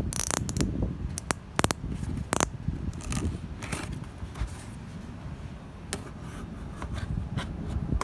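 Hands handling a cardboard box and scratching at its packing tape, with several sharp clicks and scrapes in the first couple of seconds, then softer scratching, over a steady low rumble.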